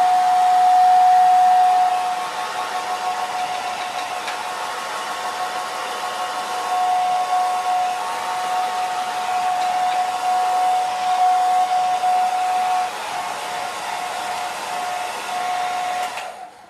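Hand-held hair dryer blowing steadily, a rushing hiss with a steady whine in it, drying wet watercolour paint. Its loudness rises and falls as it is moved over the paper, and it is switched off near the end.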